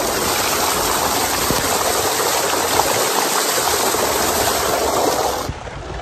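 Tubewell water gushing from the outlet pipe and splashing down over a bather and the camera: a loud, steady rush of water that drops away suddenly near the end.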